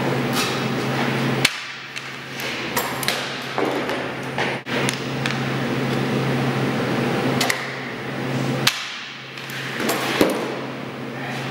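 Goaltender's skate blades scraping and landing on plastic synthetic ice during 180-degree jump drills, with a series of irregular sharp clacks and knocks over a steady low hum.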